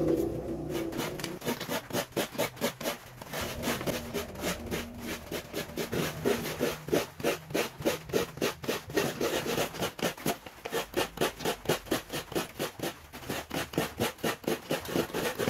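A coconut half scraped by hand against the serrated blade of a kudkuran, a wooden coconut-grater stool, in quick rhythmic rasping strokes, about three a second, as the coconut meat is grated into a bowl.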